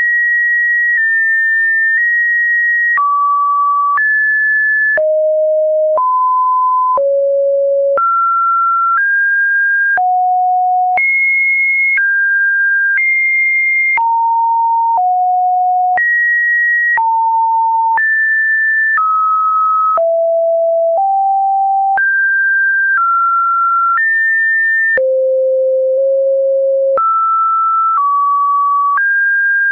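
Computer-generated sine-wave beeps, one steady pure tone per second, each jumping to a new pitch, some low and some high, with a faint click at every change, in a continuous unbroken sequence like the Webdriver Torso test videos.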